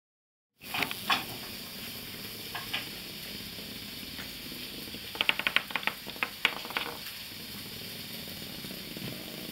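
A cat toy rattling and clicking over a steady background hiss: a few clicks near the start, then a quick run of them about five seconds in.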